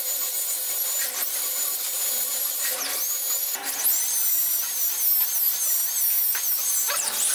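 Dental drill (handpiece) whining at a high pitch as its bur grinds down a tooth's post-and-core build-up to shape it for a crown. Its pitch dips and recovers several times as the bur bears on the tooth.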